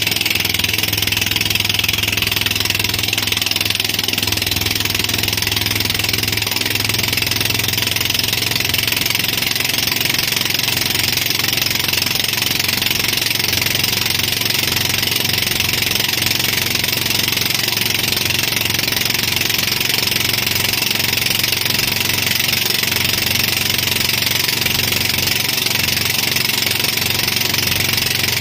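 Engine of a boat towing a banana boat at speed, running steadily, under a steady rush of wind and water spray.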